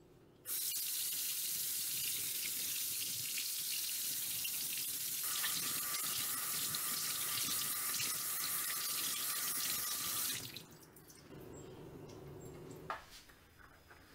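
Kitchen faucet running into a sink, the stream falling on a dishcloth and then on hands being rinsed. It starts about half a second in and is shut off about ten seconds in, leaving quieter sounds and a single sharp click near the end.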